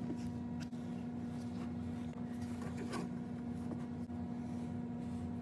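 A steady low hum, with a few faint clicks and light scraping scattered through it.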